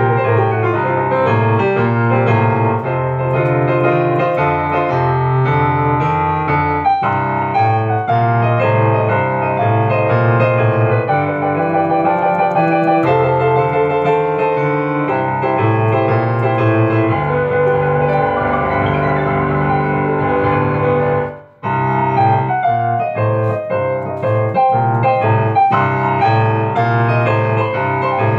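Upright piano played solo, with chords and melody over low bass notes. The playing stops for a split second about three-quarters of the way through, then carries on.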